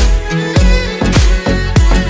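Music with a steady beat: a deep, booming drum with a quickly falling pitch hits a little under twice a second, under sustained string-like melody tones.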